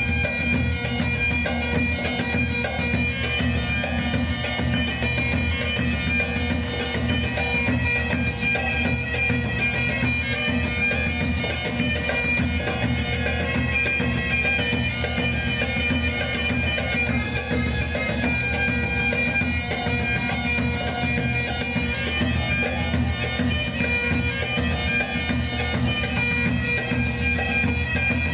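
Highland bagpipes playing a lively hornpipe tune: the chanter carries the melody over the steady, unbroken drone.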